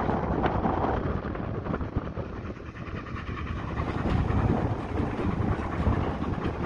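Fichtelbergbahn narrow-gauge steam train running, heard from aboard: a steady dense rumble of the wheels and carriages, with some wind on the microphone.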